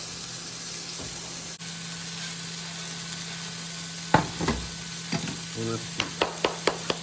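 Burger patties sizzling as they fry, a steady hiss. About four seconds in comes a sharp clatter, then a run of quick, regular taps, about four a second, near the end.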